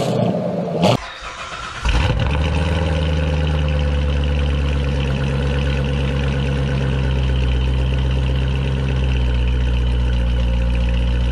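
A C7 Corvette's 6.2-litre V8 fires up about two seconds in and settles straight into a steady, loud cold-start idle. Before that, another Corvette's engine revs briefly and cuts off about a second in.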